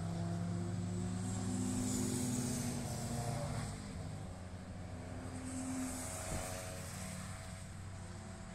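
Car engines running on a race circuit, their note shifting in pitch as the cars drive the track, loudest in the first half and fading from about four seconds in.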